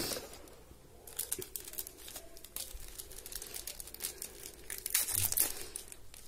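Crinkling of a detox foot patch's plastic sachet as it is handled and opened by hand: a run of small crackles that grows louder about five seconds in.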